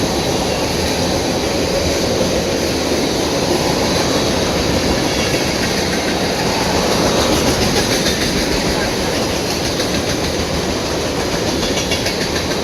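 Freight train of tank cars rolling past: a steady rumble of steel wheels on the rails, with a few faint clicks.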